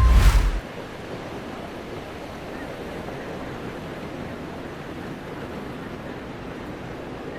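Steady wind of a snowstorm, an even rushing hiss. It opens with a brief, loud low thump and the tail of a chime.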